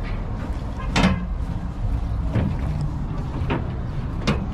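Steady low rumble of city traffic heard from high above, with several short knocks or taps, the loudest about a second in.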